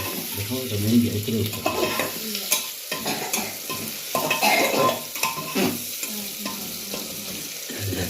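Food sizzling as it fries in a pan while it is stirred, with a metal spoon scraping and knocking against the pan again and again.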